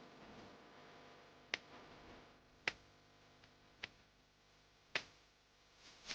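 Four sharp clicks, evenly spaced a little over a second apart, over a nearly silent background.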